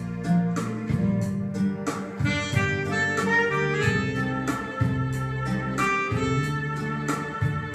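Instrumental music with a steady beat and a melody line over a bass line.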